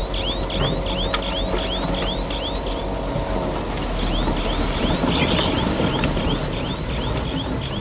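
Heavy construction machine's reversing alarm chirping rapidly, about three chirps a second, with a break of about a second in the middle, over the steady rumble of its engine.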